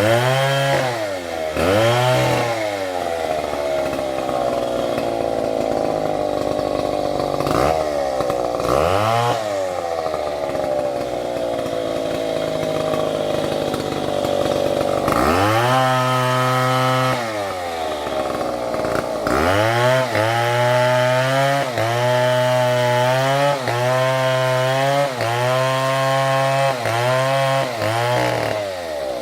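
Large two-stroke chainsaw cutting wood, its engine pitch sagging slowly under load during long cuts and rising again as it is eased off. In the last third it is revved up and down repeatedly, about once a second.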